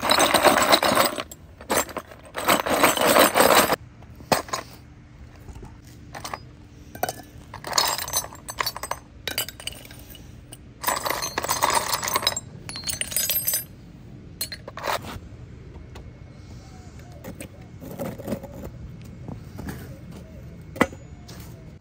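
Scrap copper pipe pieces clattering and clinking in a plastic pan and dropping into a crucible, in several loud rattling bursts with short pauses between.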